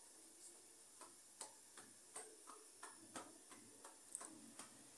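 Faint soft slaps of a round of paratha dough being patted flat between the palms, about two or three pats a second.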